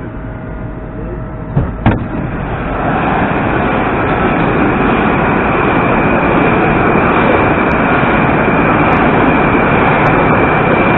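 Moscow Metro train running through a station: a steady loud rumble of wheels on rail with a thin high whine over it, setting in about two seconds in after two sharp knocks.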